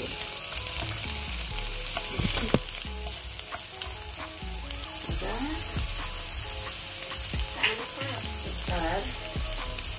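Vegetables sautéing in a pan, sizzling steadily, with a utensil stirring and clicking against the pan a couple of times about two seconds in.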